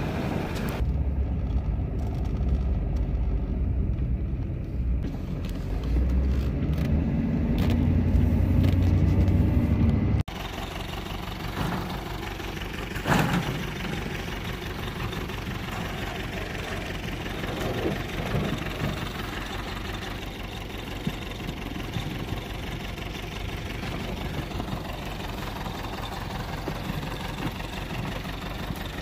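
Farm tractor engine running steadily under load, driving a PTO water pump that is flooding a cranberry bog. For the first ten seconds there is a heavier, deeper rumble. Then the sound changes abruptly to a steadier, quieter engine note with a fine even pulse.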